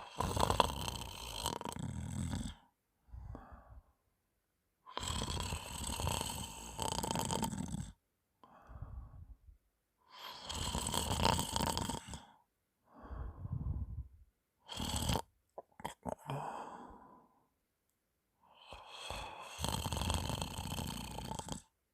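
A woman snoring in her sleep after drinking alcohol: four long, loud snoring breaths about every five seconds, each followed by a shorter, quieter one, with a brief sharp noise about two-thirds of the way through. The snoring is phlegmy, which she puts down to mucus in her throat from the alcohol.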